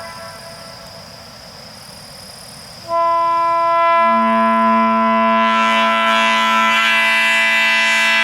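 Nathan AirChime P3 train horn, its bells tuned to an A major chord an octave below the regular P3, starting a blast sharply about three seconds in after the faint tail of the previous blast. The upper notes speak first, and the lowest bell comes in about a second later and holds as the loudest note of the chord.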